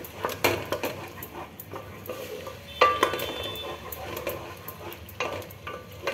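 A flat spatula stirring and scraping thick tomato puree in a metal pot, just added to fried onion paste. It knocks against the pot a few times, with one sharper clink about three seconds in that rings briefly.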